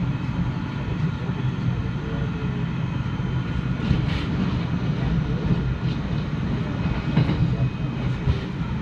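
Steady rumble of a passenger train heard from inside the car as it runs along the track, with a few short clicks and rattles. Another train goes by close alongside about four seconds in.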